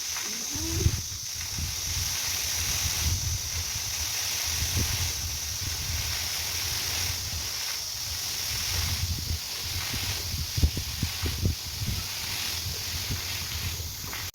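Steady high-pitched drone of summer insects in the woods, with low wind rumble on the microphone and a few short thumps.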